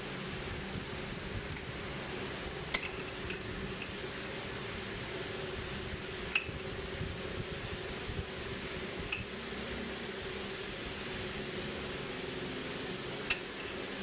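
Metal tools or engine parts clinking: four sharp, ringing clinks a few seconds apart over a steady workshop hum.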